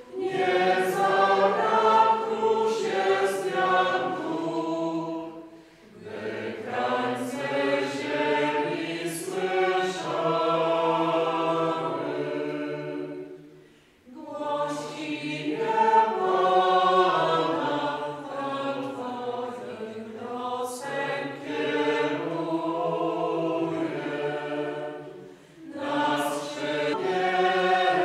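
A group of voices singing a hymn, phrase by phrase, with three short breaks between phrases.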